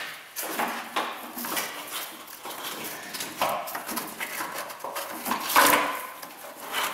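A corrugated plastic hose loom and rubber EVAP vent hose being worked through a truck's frame by hand: irregular rustling, scraping and light clicking, with a louder scrape about two-thirds of the way through.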